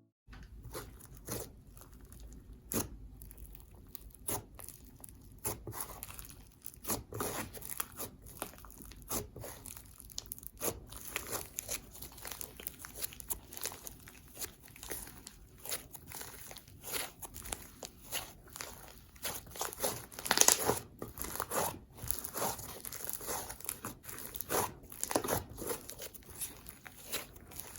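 Slime being squeezed, stretched and folded by hand, giving irregular crunchy crackles and small pops.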